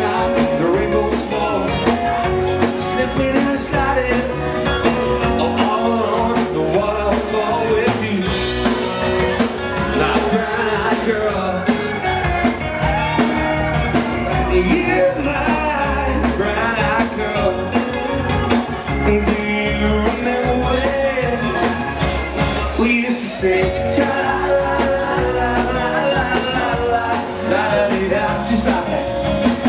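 Live band playing upbeat rock-and-roll music with a steady drum beat.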